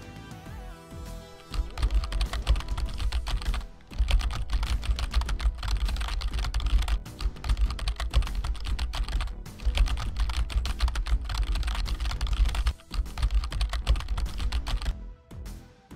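Clear plastic wrapping around a computer monitor crackling and rustling as it is handled, loud and dense with a low thumping of handling noise, pausing briefly twice. Background music underneath.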